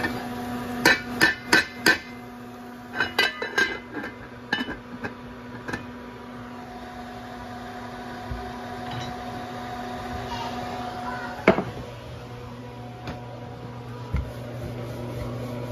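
Sharp knocks and taps of hard kitchen utensils against a hard surface. There is a quick run of four about a second in, a cluster a couple of seconds later, then scattered taps and one loud knock near the end, over a steady low hum.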